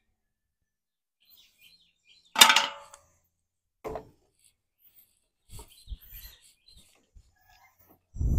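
A sharp metal clang with a short ring about two seconds in, likely the planter's sheet-metal seed hopper being knocked. A lighter knock follows a second later, then a few faint handling knocks. A burst of low rumbling noise comes near the end.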